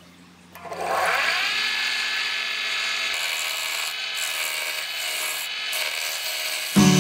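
500-watt mini wood lathe's electric motor switched on: a whine rising in pitch as it spins up over about a second, then running steadily. Acoustic guitar music comes in just at the end.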